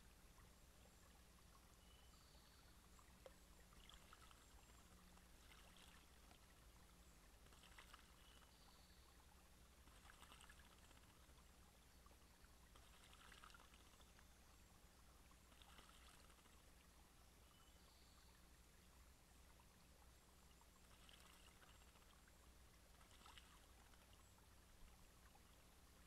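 Faint splashing of a blue jay bathing in a shallow spring pool, in short bursts every few seconds, over a low steady hum.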